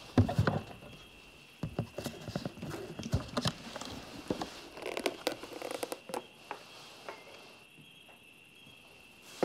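A wooden box is set down on a wooden table and opened, and a stack of ring-bound metal plates inside is handled. The result is a scattered series of light knocks and clicks of wood and metal that thin out after about six seconds.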